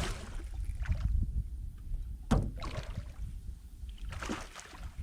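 Knocks, rumble and water noise from a small fishing boat while a hooked redfish is played, with one sharp knock a little over two seconds in.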